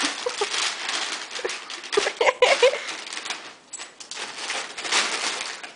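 Gift-wrapping paper crinkling and rustling as a puppy noses, paws and tugs at a wrapped present, with a few brief whimpers from the puppy about two seconds in.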